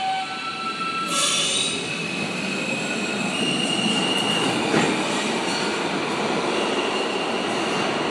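New York City subway R train pulling out of the station and running away down the tunnel: a steady rumble of wheels on rail, with a brief hissing burst about a second in and a thin, high wheel squeal from about halfway through.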